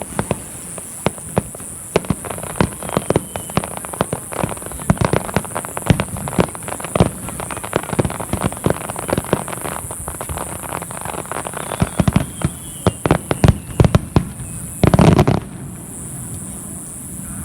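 Aerial firework shells bursting in quick succession, a rapid string of sharp bangs and crackles. About fifteen seconds in comes a longer, louder burst lasting about half a second, and then the barrage dies away.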